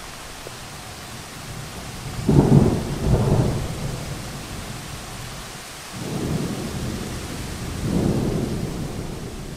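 Steady rain with two rolls of thunder: a short one about two seconds in and a longer one from about six seconds that swells and then fades.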